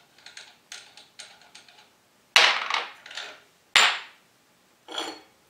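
Light metallic clicks as the loosened arbor nut is spun off a 9-inch Craftsman radial arm saw's arbor, then two sharp metal clanks about a second and a half apart and a softer ringing clink near the end as the nut, flange and blade are handled.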